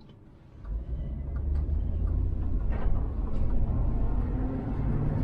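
Vehicle driving: a steady low engine and road rumble that sets in about half a second in, with a few light knocks.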